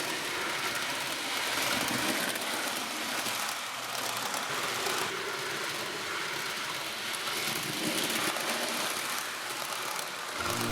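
A train running, a steady even rush of noise without distinct beats.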